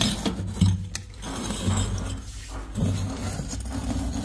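Thread-sealing-taped pipe fitting being screwed by hand into a water booster pump's outlet: irregular rubbing and scraping with a few light clicks.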